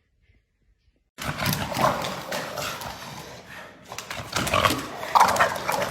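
A dog's rough, unpitched vocal noise that starts suddenly about a second in and comes in several loud surges.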